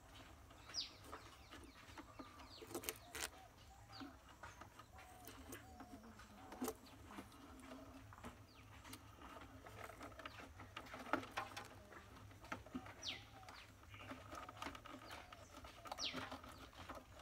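Faint background birds: short high whistles that fall steeply in pitch, heard a few times, along with lower wavering calls. A few sharp clicks are scattered through.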